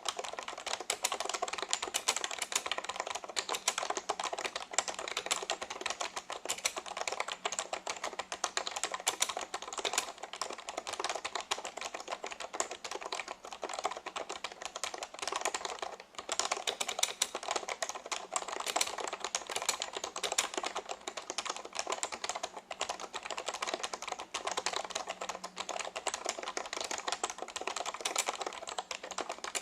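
Continuous fast typing on a vintage Reuters DK3000 keyboard with Alphameric key switches: a dense, steady stream of keystroke clicks, with a short break about halfway through.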